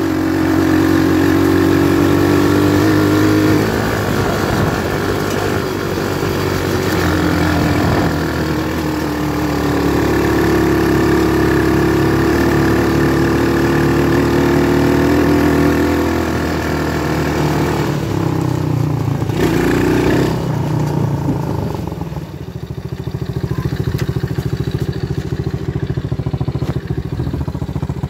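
Quad bike engine running under way, its pitch rising and falling as the throttle is opened and eased. Near the end it settles to a lower, steadier note.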